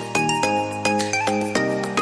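Background music: an upbeat tune with a steady beat and bright, bell-like notes.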